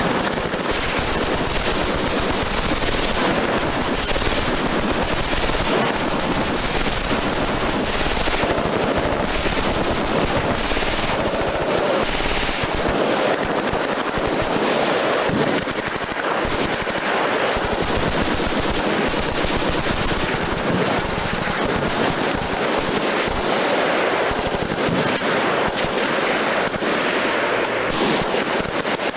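Sustained automatic machine-gun fire, the shots packed close and overlapping, with no pause.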